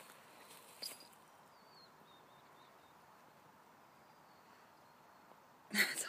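Quiet outdoor background with faint, thin, high gliding notes like distant bird calls. A short rustle comes about a second in, and a louder burst of rustling just before the end.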